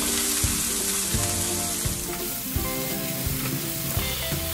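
Diced carrot, celery and onion sizzling in hot oil in a frying pan while being stirred with tongs, with a steady hiss and occasional clicks of the tongs against the pan.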